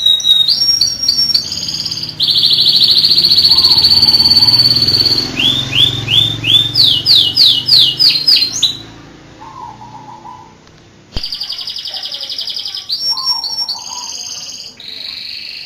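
Domestic canary singing, with fast rolling trills and quick runs of rising notes. The song drops back briefly about nine seconds in, then trilling resumes.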